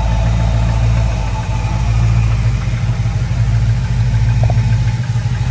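The 1956 Ford F100 custom pickup's engine idling steadily, heard close up in the open engine bay.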